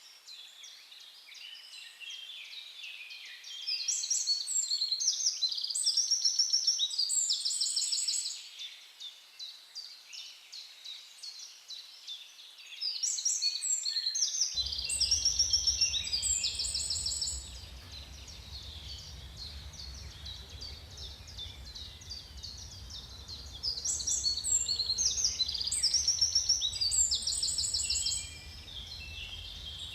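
A songbird singing long, varied phrases full of rapid high trills, one phrase roughly every ten seconds, over softer background chirping. A low, steady rumble comes in about halfway through.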